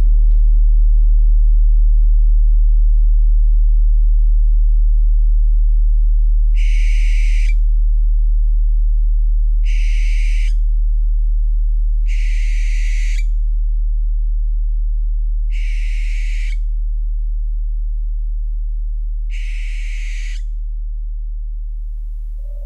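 An owl screeching five times: hoarse calls about a second long, a few seconds apart. Under them runs a steady deep meditation tone that slowly fades.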